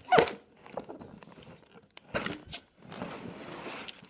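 Cardboard box of a Lego Porsche 911 RSR set being opened: a sharp tear just after the start, then scattered clicks and rustling of the cardboard flaps.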